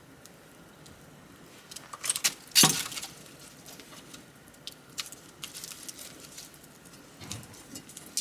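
Wood bonfire crackling: scattered small ticks, with a burst of loud pops and snaps about two to three seconds in, a deeper crack near seven seconds and another pop at the end.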